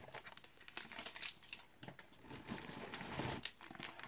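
Small plastic packaging bags crinkling and rustling as they are handled, a run of soft, irregular crackles.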